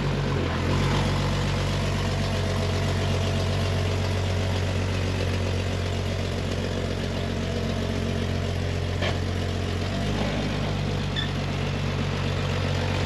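1999 Jeep Wrangler TJ engine running at a steady low idle on its newly replaced fuel pump, not stalling. Its note shifts slightly about half a second in and again about ten seconds in.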